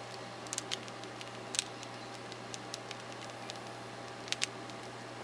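Crust of a freshly baked no-knead artisan loaf crackling as it cools: faint, irregular ticks and pops, a few a second at most, the sound bakers call the bread singing.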